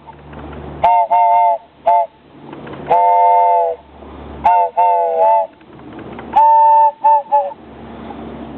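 Wooden train whistle blown in a run of short and long toots, each a chord of several tones sounding together, like a steam train whistle. The pitch sags slightly as each blast ends.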